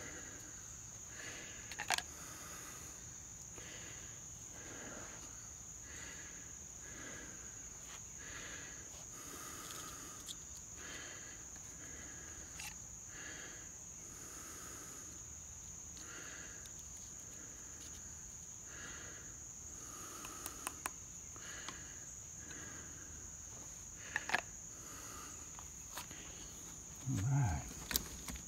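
Steady high-pitched drone of crickets, with a soft scraping stroke about once a second as a knife works at a wooden hand-drill hearth board. A few sharper knocks stand out, the loudest near the end.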